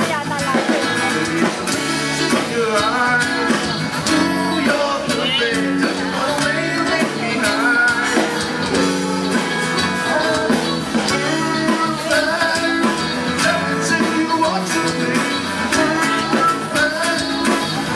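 Live band playing a rock song: a man singing into a microphone over guitar, bass guitar and drums.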